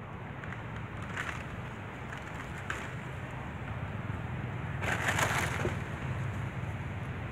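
Young monkeys clambering on a broken dead branch: short scrapes and crackles of bark and wood, three times, the loudest and longest about five seconds in, over a steady low rumble.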